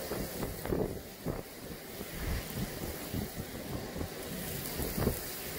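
Hurricane-force wind gusting across an open parking deck and buffeting the microphone in uneven surges, with wind-driven rain blowing through.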